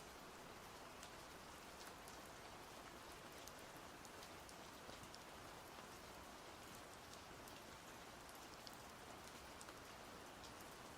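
Faint, steady rain, a constant hiss with scattered individual drop ticks.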